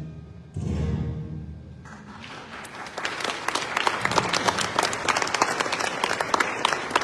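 A musical number ends: a sudden low final chord sounds about half a second in and dies away. From about two seconds in, the audience starts clapping and builds to steady applause.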